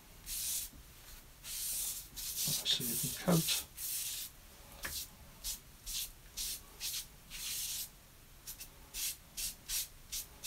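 Damp sponge rubbed over watercolour paper in repeated strokes, wetting the sheet ahead of a wash. A few longer wipes come first, then quicker short strokes about two or three a second. There is a brief rising squeak about three seconds in.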